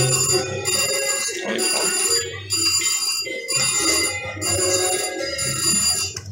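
VGT Platinum Reels slot machine's electronic bell-like chimes ringing in a repeating pattern, about once a second, as its reels spin.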